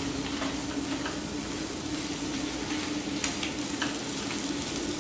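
Green beans sizzling in a skillet on a propane camp-stove burner, under a steady hiss, while a silicone spatula stirs them, with a few short scrapes and taps against the pan.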